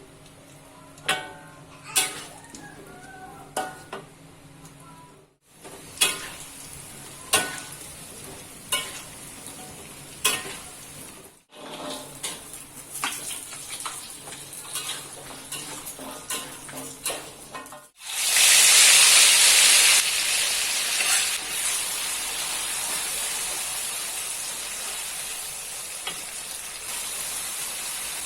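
Kitchen utensils clicking and knocking against cookware. About two-thirds of the way through, a loud sizzle starts suddenly as food hits hot oil in a pan, then settles into steady frying.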